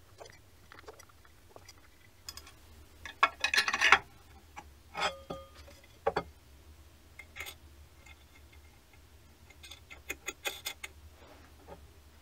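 Handling clicks and taps from an aluminium dividing plate and its fittings, with a dense rattle of clinks about three seconds in and another cluster near the end. A brief ring sounds about five seconds in.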